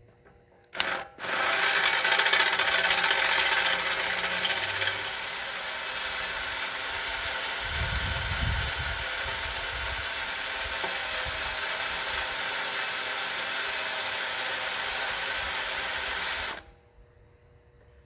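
Pneumatic air hammer chattering against a steel frame rivet on an M35A2 truck frame to knock a divot into the rivet head. After a short blip just before a second in, it runs steadily at an even rate for about fifteen seconds, then stops abruptly.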